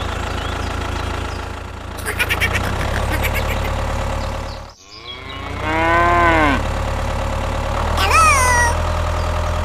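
Cow mooing once, a long call rising then falling in pitch about six seconds in, followed by a shorter, higher call about eight seconds in, over a steady low engine drone. A quick run of ticking comes about two seconds in.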